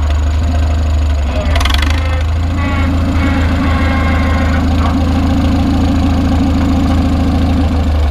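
1942 Farmall M's four-cylinder gasoline engine running through a stainless steel straight-pipe exhaust as the tractor drives off. The engine note breaks and dips briefly about a second and a half in and again near the end as the driver shifts up through the gears.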